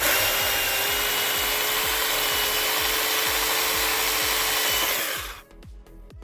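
Small battery-powered pruning chainsaw cutting through firewood: a loud steady buzz with a whine held at one pitch, starting suddenly and cutting off after about five seconds.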